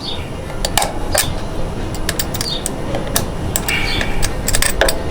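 Pliers bending a steel cotter pin around a wheel nut: irregular small metallic clicks and taps, about a dozen, over steady low background noise.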